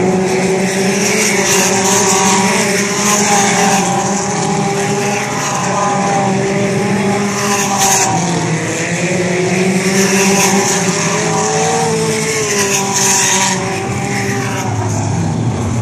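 Several race cars' engines running hard around a dirt oval. Their pitch rises and falls over and over as the cars accelerate and lift, with brief louder surges as cars pass closer.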